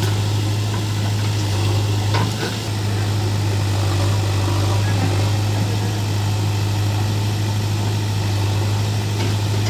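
Diesel engine of the backhoe loader or tractor running steadily at idle, with a deep, even hum.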